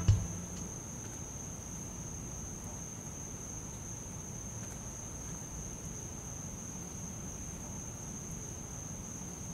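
Crickets chirring in one steady, unbroken high-pitched trill over a low background hiss.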